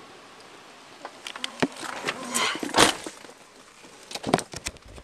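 Clothing rubbing on a body-worn microphone, with a string of clicks and knocks as a person climbs into a vehicle; the loudest knock comes near the middle.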